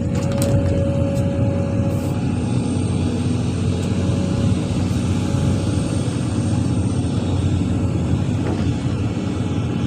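Heavy diesel engine of an excavator running steadily, with a faint high whine in the first couple of seconds.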